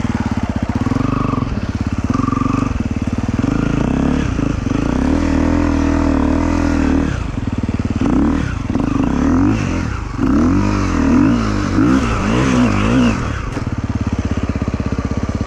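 Motorcycle engine running steadily at idle, then revved up and down several times through the middle stretch before settling back to a steady idle near the end.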